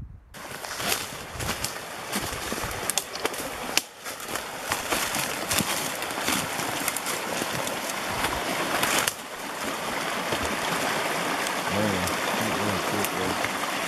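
Rushing water of a fast, partly iced-over stream: a steady hiss with scattered clicks and knocks over it.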